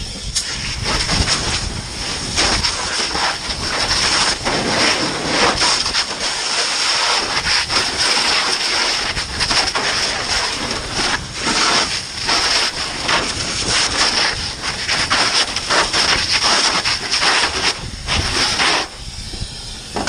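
Fire hose nozzle spraying water into a burning building: a loud, steady hiss of spray that starts about half a second in and cuts off abruptly near the end as the nozzle is shut.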